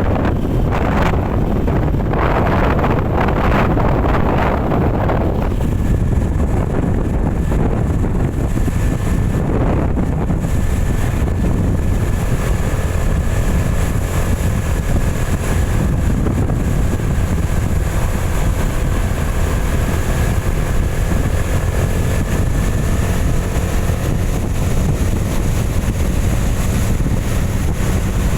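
A vehicle driving on a rain-soaked road: a steady low rumble of engine and tyres, with wind noise on the microphone. The first few seconds are rougher and noisier.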